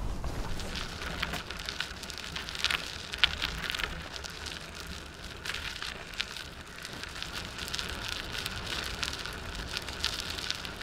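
Bicycle rolling along a rough gravel track: the tyres crackle over loose grit and stones in a dense patter of small clicks, over a low rumble.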